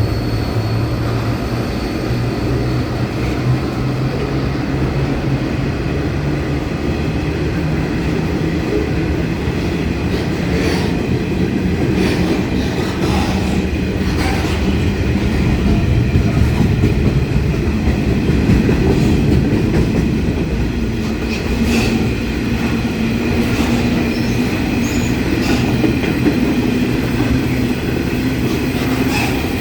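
A long freight train of aggregate wagons rolling past with a steady, loud rumble. Wheels click over the rail joints now and then, more often about a third of the way in and near the end.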